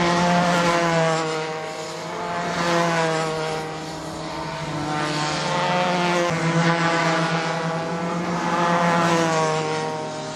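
Racing kart engines buzzing at high revs as karts pass on the track, the pitch rising and falling and the sound swelling about four times.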